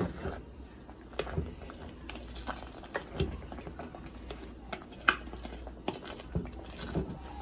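A spoon stirring raw rice into a chicken stew in a pot: scattered scrapes and clinks of the spoon against the pot, with the sharpest knock about five seconds in.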